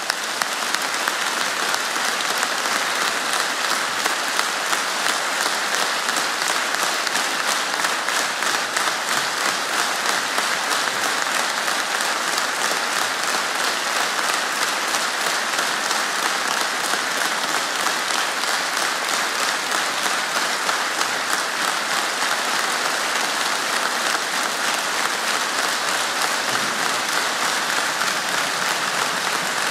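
A large audience applauding steadily: a dense, even clapping that holds at one level throughout.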